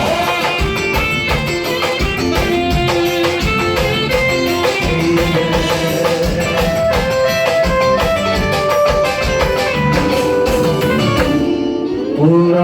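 Instrumental piseiro music: a plucked melody line over a steady, busy beat, with a short break near the end before the band comes back in.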